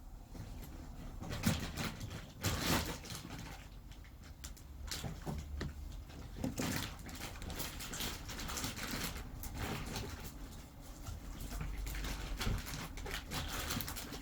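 A cat pawing and kneading a plush pet bed: irregular rustling and scratching on the fabric, with a couple of louder rustles near the start.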